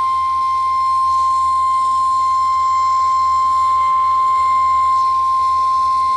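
NOAA Weather Radio's 1050 Hz warning alarm tone: a single steady high tone held without a break, signalling that a warning, here a Severe Thunderstorm Warning, is being broadcast.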